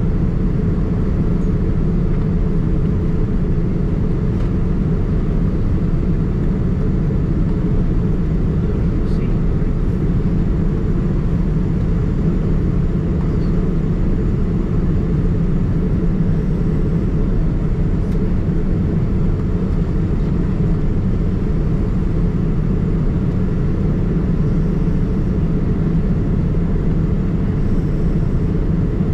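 Steady, even cabin rumble of a Boeing 787-9 heard from a window seat: engine noise, deep and unchanging, with no rise or fall.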